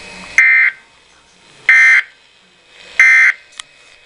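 Weather radio sending three short, identical bursts of SAME digital data tones, each about a third of a second long and a little over a second apart. Bursts this short are the end-of-message code that closes the alert.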